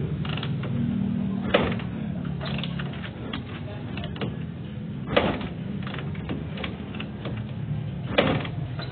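A Honda TMX single-cylinder engine being kick-started after a bearing replacement: three hard kicks roughly three seconds apart, with lighter clanks of the lever between them, and the engine not catching.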